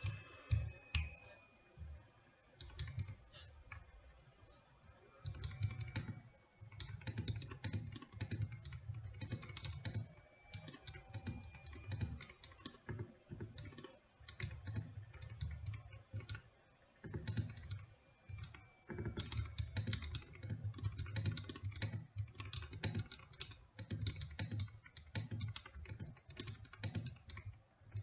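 Typing on a GMK67 mechanical keyboard with Akko V3 Cream Blue tactile switches lubed with Krytox 205g0: quick, irregular key presses, each with a low-pitched clack, pausing briefly now and then.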